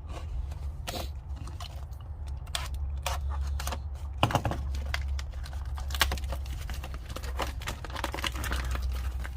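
Lisle carbide scraper set being handled and unpacked: irregular clicks, taps, crinkles and scrapes of the tools and their packaging, with a sharper knock about four seconds in and another about six seconds in, over a steady low hum.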